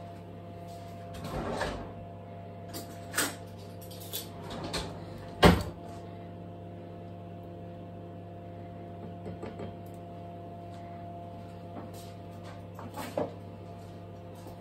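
Kitchen handling noises: scattered knocks and clatters of utensils and dishes, the sharpest about five and a half seconds in, over a steady low hum.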